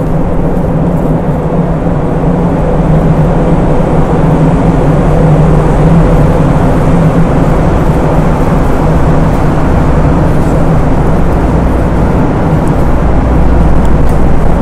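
Steady, loud drone of a car ferry's machinery heard on its enclosed vehicle deck: a low rumble with a few steady hum tones.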